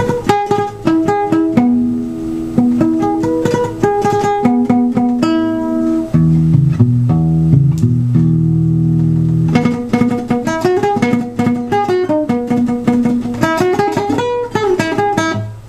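Classical guitar played solo: a picked melody of single notes, with a stretch of held low chords in the middle.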